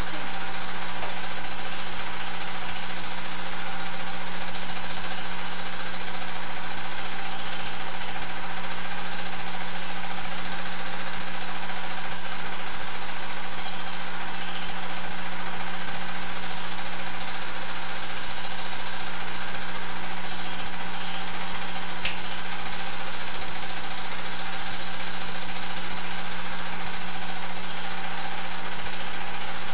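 Super 8 film projector running: a steady motor hum with even, unchanging tones and a hiss, level throughout.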